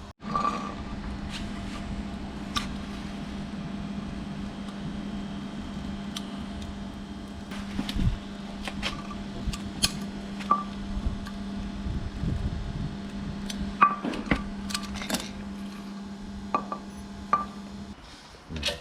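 A steady machine hum runs for most of the stretch, with scattered sharp clicks and metal taps over it, and stops shortly before the end.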